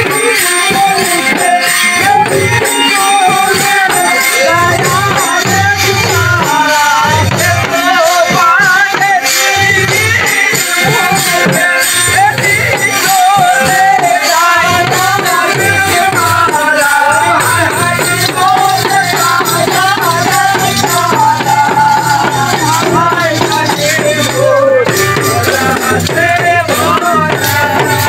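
Bengali folk dance music for a Chaitra Puja baidya dance: a wavering, ornamented melody over fast rattling, jingling percussion, with a steady low drone in the second half.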